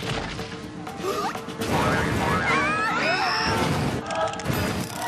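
Cartoon action sound effects: crashing and banging, with squeaky pitch glides, over a music score. About four seconds in, the music's held notes take over.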